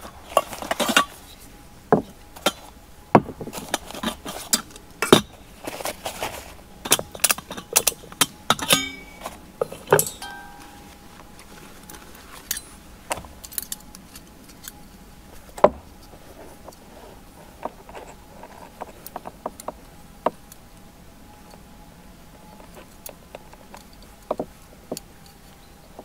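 Clinks and knocks of metal camping cookware (a small kettle, a mug and a gas cartridge) being handled, taken out of a pouch and set down on a wooden table. The knocks come thick and fast in the first half, then sparser.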